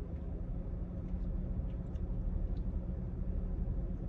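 Steady low hum inside a car's cabin, with a few faint light clicks.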